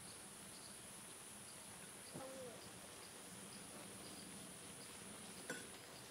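Faint outdoor ambience: a steady high-pitched insect drone with faint repeated chirps. There is a single light tap about five and a half seconds in.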